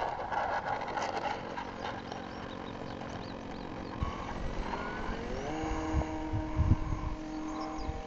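Electric RC airplane's motor and propeller whine, rising in pitch about halfway through and then holding steady, as the model takes off from the runway. Low thumps of wind on the microphone join near the end.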